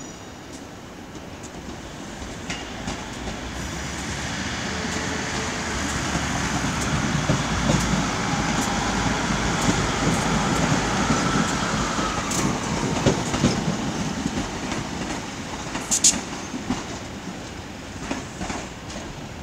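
ScotRail Class 156 diesel multiple unit running past, its engine and wheel noise building to a peak about halfway through and fading as it goes away. Its wheels click over the points, with a sharp clack about 16 seconds in.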